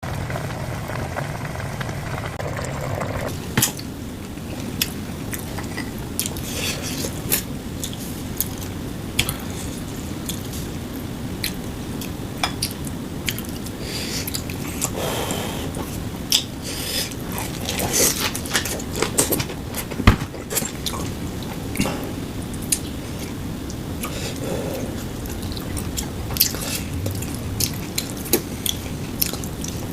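Eating sounds: spoon and chopsticks clinking and scraping against bowls, with chewing, in many short irregular clicks.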